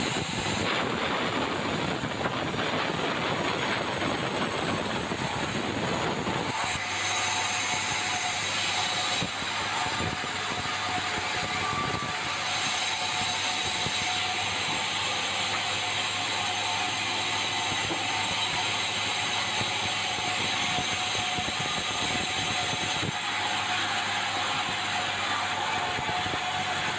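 Sawmill machinery running steadily, a continuous mechanical noise; its lower, heavier part drops away abruptly about six and a half seconds in.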